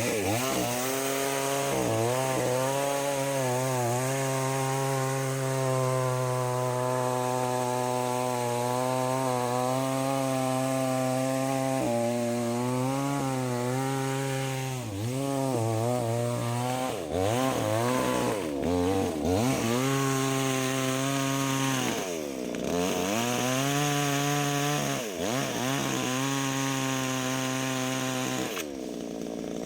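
Two-stroke chainsaw cutting into a fallen tree trunk, running at high revs with the engine note dipping again and again as the chain bites into the wood and then recovering. Near the end the engine drops back and falls quieter.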